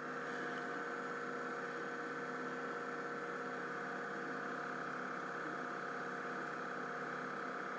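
Steady electrical hum with a few faint, even tones over a light hiss; no clicks or other distinct sounds.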